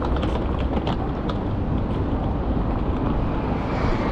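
City street ambience: a steady low rumble of traffic, with wind on the microphone and a few faint ticks in the first second and a half.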